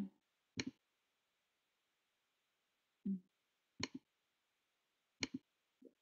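Near silence broken by a few short clicks, three of them spread over the pause, and one brief low hum between them.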